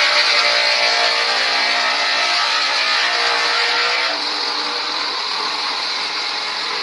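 Motor-driven portable sawmill running and cutting lengthwise through a log, a steady machine whine over the hiss of sawing. The sound changes and drops a little about four seconds in.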